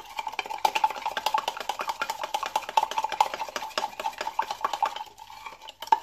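Spoon stirring a liquid dressing in a plastic measuring jug to dissolve the powdered sugar: rapid, even clicking and scraping of the spoon against the jug's sides, easing off briefly near the end.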